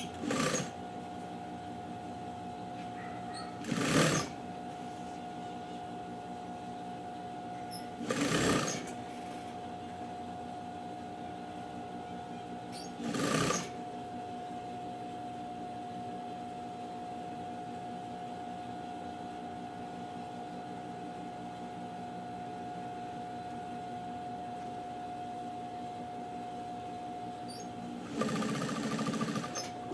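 Sewing machine stitching in short spurts: five bursts, most under a second and the last about a second and a half, as fabric strips are sewn onto a rag rug. A steady hum with a held tone runs between the spurts.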